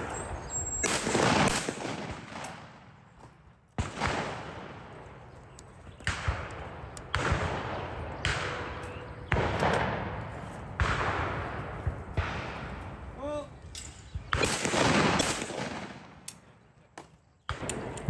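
Shotgun shots fired at clay targets, about eight over the stretch, some in quick pairs about a second apart. Each shot is a sharp crack followed by a long echoing tail.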